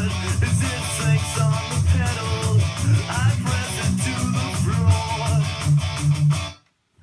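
Guitar-led music played through Dayton Audio B652 Air bookshelf speakers and picked up by a phone's built-in mic. The sound cuts off suddenly about six and a half seconds in.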